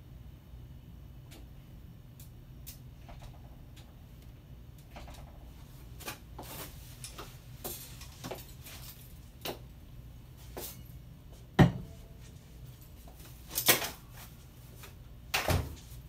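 Folding camp chair creaking and clicking as a person shifts in it and gets up. Its metal frame then clacks with three loud, sharp knocks in the second half as it is folded.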